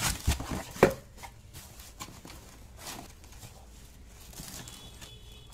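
A few sharp knocks of a cardboard shoebox being opened and handled, the loudest a little under a second in, followed by soft rustling of the paper wrapping inside.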